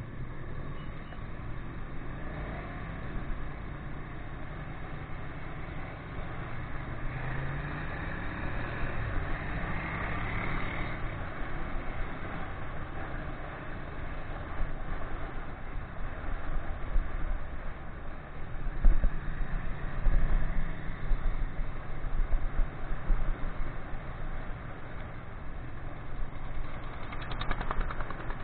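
Ducati 959 Panigale's Superquadro L-twin engine running under way, with wind rush across the bike-mounted camera. The engine pitch rises as the bike accelerates about eight seconds in, and heavier low buffeting comes a little past the middle.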